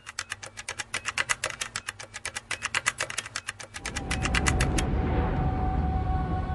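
Typewriter key-click sound effect, a rapid even run of about eight clicks a second lasting nearly five seconds. About four seconds in, a deep rumbling drone with a held tone comes in and carries on.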